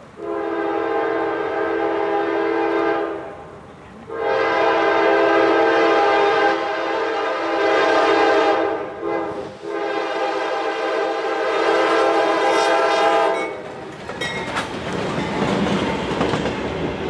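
Norfolk Southern freight locomotive, a GE Dash 9-44CW, blowing its multi-chime air horn for the grade crossing in three long blasts. Near the end the horn stops and the lead locomotive passes close by with a loud rush of engine and wheel noise.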